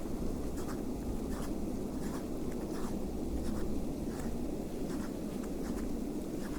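Footsteps crunching in snow at a steady walking pace, roughly three steps every two seconds, over a constant low rumble of wind on the microphone.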